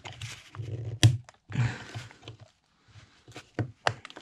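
Steel screwdriver scraping and clicking against a tractor fuel lift pump body as a stubborn crimped-in part is levered out. There is a sharp click about a second in, a scrape after it, and a few more clicks near the end.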